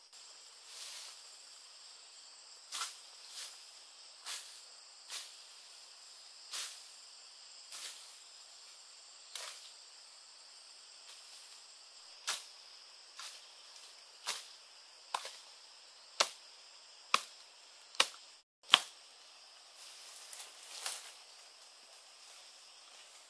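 Machete chopping brush and branches: a string of sharp chops about one a second, getting louder in the second half. Insects drone steadily behind.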